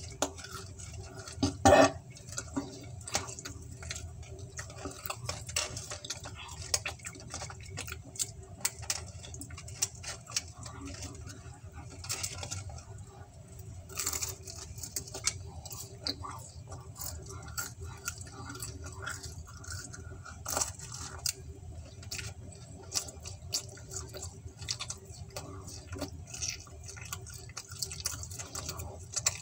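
Close-up eating sounds: pizza being chewed, with wet mouth clicks and lip smacks all through. A louder knock about two seconds in, over a faint steady hum.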